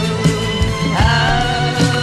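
Background music: a pop-rock song with a steady drum beat, and a sung note coming in about a second in.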